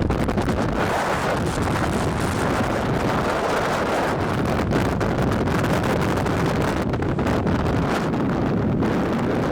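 Strong wind buffeting the microphone: a loud, steady rushing noise with constant crackling gusts.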